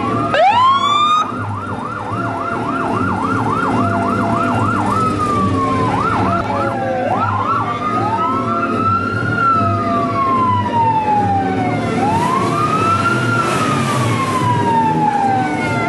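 Electronic police siren running through its tones. It starts with a rising whoop, then a fast yelp of quick repeated sweeps for a few seconds, then a slow wail that rises and falls twice. A low engine rumble runs underneath.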